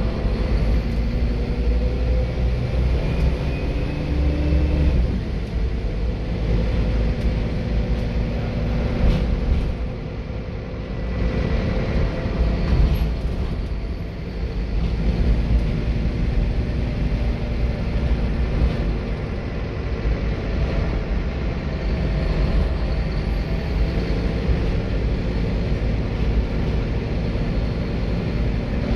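Scania K230UB single-deck bus's engine running as the bus drives, heard from inside the rear of the saloon, with road and body noise. The engine note changes about five seconds in, and the loudness dips briefly about ten seconds in and again around fourteen seconds.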